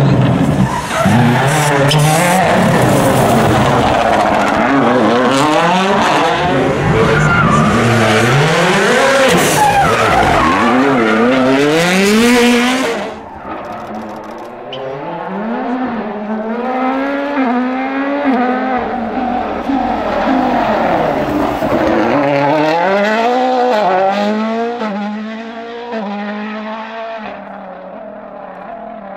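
World Rally Car 1.6-litre turbocharged four-cylinder engines at full attack, the revs climbing hard and dropping sharply again and again through gear changes and braking. The first car is very loud and close. About 13 seconds in the sound drops abruptly, and a Toyota Yaris WRC is heard further off, revving up through the gears and then fading.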